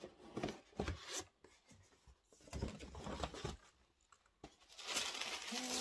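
Rigid cardboard gift box being opened: the lid scrapes and knocks as it comes off, then tissue paper inside rustles for about a second near the end. A short hummed note from the woman comes right at the end.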